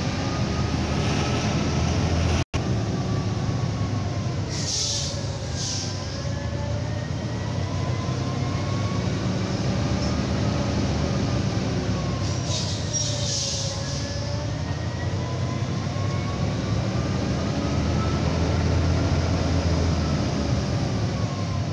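Scania 113 truck's diesel engine heard from inside the cab on a long mountain descent, held in a low gear for engine braking: a steady drone with a whine that slowly rises and falls in pitch. Two short hisses of air come about five and thirteen seconds in.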